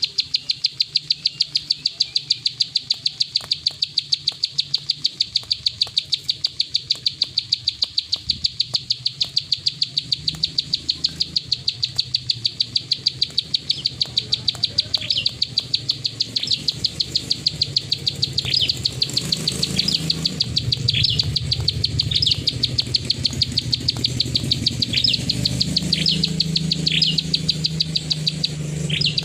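Plain prinia (prenjak sawah) giving its rapid 'klik' call: a steady run of dry, evenly spaced ticks, about four or five a second, with short falling chirps joining in from about halfway.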